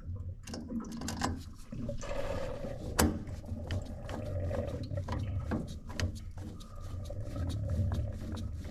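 Screwdriver driving in the screws that hold the new plate heat exchanger in a Baxi Main Eco 30 combi boiler: scattered small metal clicks and scrapes, with one sharp click about three seconds in, over a low steady hum.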